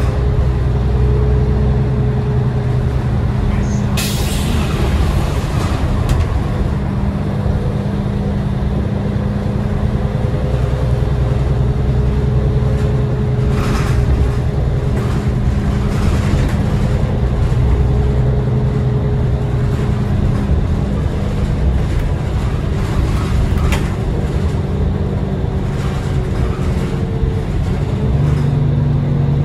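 The Cummins ISL 8.9-litre six-cylinder diesel of a New Flyer D40LF city bus running under way, heard from inside the bus, its engine note rising and falling with speed and gear changes. About four seconds in there is a short, sharp burst of air hiss.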